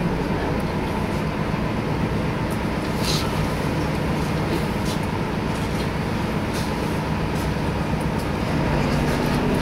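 A boat's engine running steadily under way, heard from on board: a constant low hum over a steady rush of noise.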